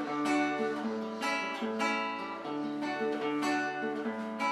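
Acoustic guitar (violão) strumming and plucking chords in a lilting folia de reis (reisado) rhythm, with fresh strokes about every half second.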